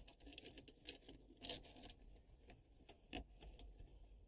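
Faint, scattered small metallic clicks and taps from hands threading and tightening the lock nut of a Romex cable clamp on a sheet-metal exhaust-fan housing.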